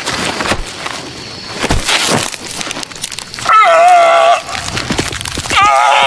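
Film gore sound effects of cracking and crunching, then a person crying out twice in pain, high and wavering, about three and a half seconds in and again near the end.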